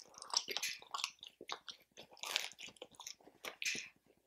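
Close-miked chewing: irregular wet mouth clicks and smacks of someone eating with the mouth open, with a few louder bites.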